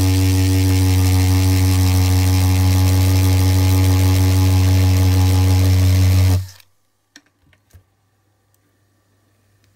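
Bosch GSB 10.8 cordless drill running steadily in hammer mode, its chuck pressed on the end of a diecast model car's wheel axle to crimp it over. It stops abruptly about six and a half seconds in, followed by a few light clicks.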